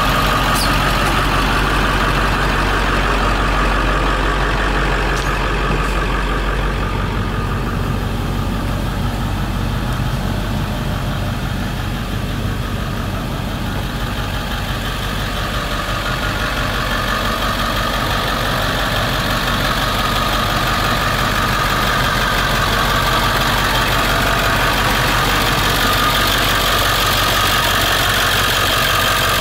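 Ford 7.3 Power Stroke V8 turbodiesel idling steadily, a little quieter around the middle.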